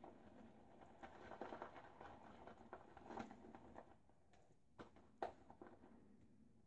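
Faint swishing and squishing of a silvertip badger shaving brush whipping soap lather in a bowl, the lather getting loose and elastic, with a few sharp ticks in the second half.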